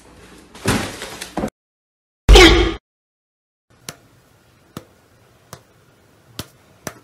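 Five sharp finger snaps, spaced roughly a second apart, in the second half. Earlier there is a burst of rustling noise and then a short, loud cry that falls in pitch.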